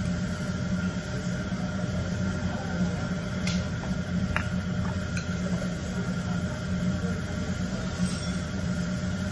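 Steady low hum of a restaurant dining room, with a few light clicks of tableware in the middle.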